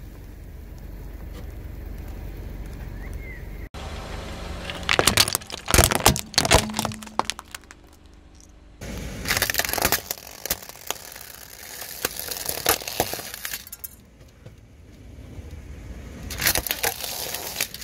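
A car tyre rolling over and crushing brittle plastic toys (sunglasses frames, a toy bus): sharp cracking and snapping in several separate bursts, each a few seconds long.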